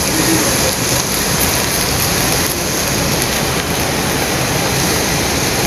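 Pork barbecue skewers sizzling steadily on a charcoal grill, their sauce and marinade hissing on the hot grate and coals.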